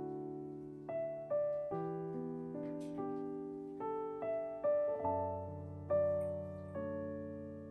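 Soft background piano music, with single notes and chords struck and left to fade.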